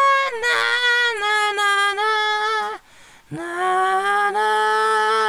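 A lone high voice singing long drawn-out notes without accompaniment, breaking off briefly about three seconds in before holding another long note.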